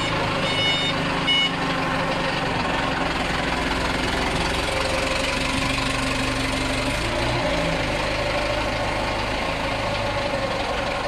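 Forklift engine running steadily while carrying a raised cement weigh hopper, its pitch shifting a couple of times midway. A warning beeper gives a few short beeps in the first second and a half.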